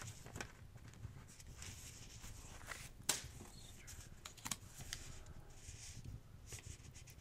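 Soft, irregular crackles and pops of a fireplace fire mixed with light paper rustling. One sharp pop about three seconds in is the loudest.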